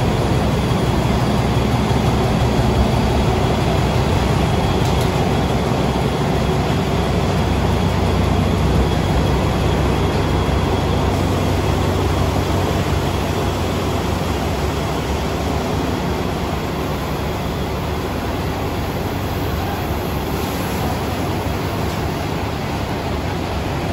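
Steady low hum of an idling diesel train engine at a station platform, easing slightly after the middle, with an even wash of platform noise.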